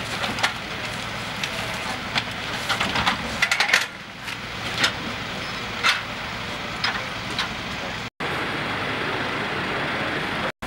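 Crackling and rustling of plastic protective gear and plastic sheeting over a steady low hum; the sound drops out briefly twice near the end.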